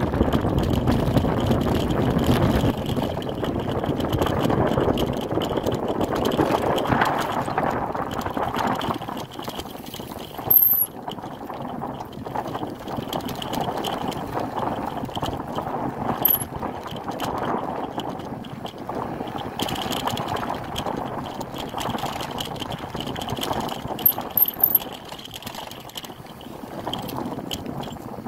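Bicycle riding along a dirt trail: a steady rush of tyre and wind noise on the microphone, louder at first, with a few short sharp rattles later on.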